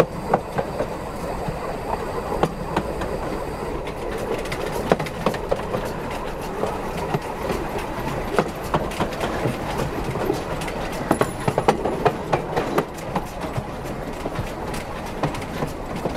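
Narrow-gauge steam locomotive Spreewald running along the track over a steady rumble, its wheels clicking and knocking irregularly over rail joints and switches. A cluster of louder clacks comes about eleven to twelve seconds in.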